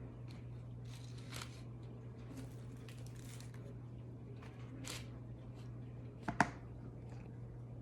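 Soft scattered rustling and handling noises, with one sharper click or knock about six and a half seconds in, over a steady low hum.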